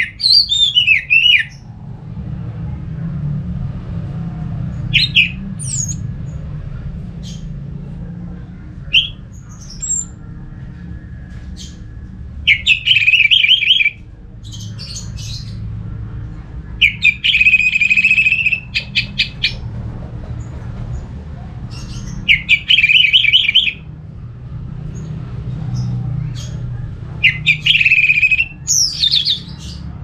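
Orange-headed thrush (Geokichla citrina) singing loud, rapid warbling phrases about every four to five seconds, with short single notes in between, over a steady low hum.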